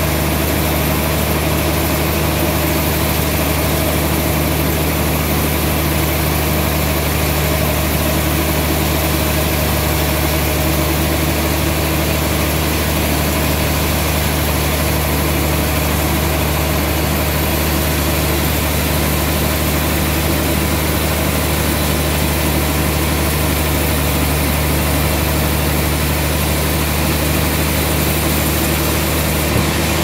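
Band sawmill running steadily while its blade cuts lengthwise through a large trembesi (rain tree) log: a constant loud machine hum with a steady low drone.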